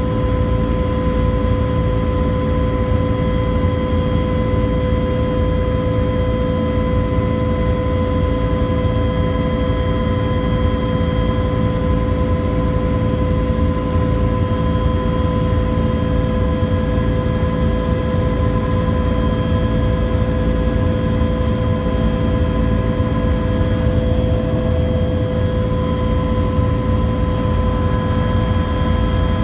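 UH-1 helicopter in steady cruising flight, heard from inside the cabin: a loud, even rumble of rotor and engine with a steady whine held on several pitches above it.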